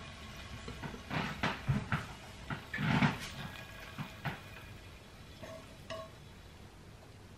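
Kitchen utensils and dishes knocking and clinking several times, the loudest a dull knock about three seconds in. Two faint short ringing tones follow near the middle.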